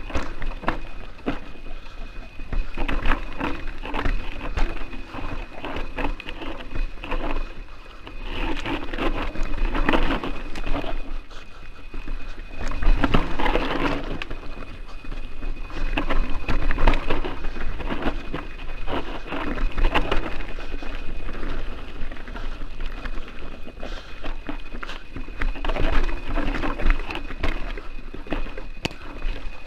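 Mountain bike descending a loose, rocky trail: tyres crunching and skittering over stones, with the bike frame and parts rattling and knocking over the bumps, picked up by a helmet-mounted camera.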